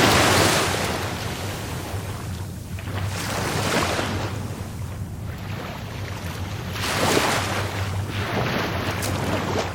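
Rough Caribbean sea surf: waves breaking in three surges a few seconds apart, the loudest at the start, over a steady low rumble of the sea.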